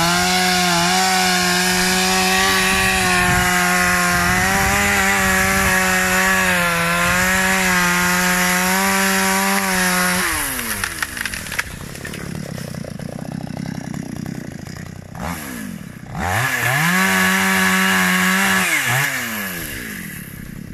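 Chainsaw engine held at full throttle in a steady cut through a tree trunk for about ten seconds, then its pitch drops to idle. A few seconds later it revs up again, holds briefly, and falls back.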